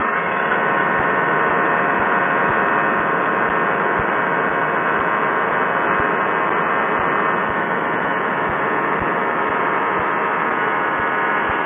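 Quicksilver ultralight's two-stroke engine and propeller running steadily in flight, a constant multi-toned drone under a rush of wind noise with small buffeting thumps.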